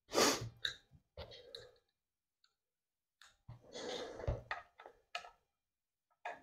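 Handling noise from the shotgun being shifted on a work mat and a screwdriver being picked up and set to a screw: a few short scrapes and rustles with sharp clicks, loudest just after the start and again around four seconds in.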